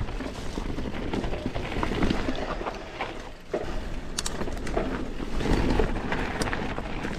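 YT Capra Core 3 MX mountain bike ridden downhill on a trail: tyres rolling over dirt and rock, with sharp knocks and rattles from the bike over bumps, and wind noise on the microphone.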